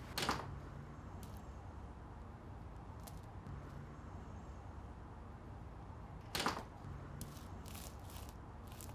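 A door bangs shut just after the start. About six seconds in there is a single thud, then a few lighter footstep ticks, all over a low steady hum.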